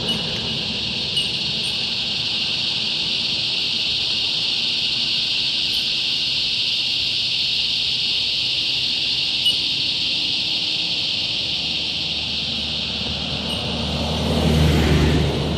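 Loud, steady high-pitched chorus of cicadas droning without a break. A vehicle swells past on the road near the end.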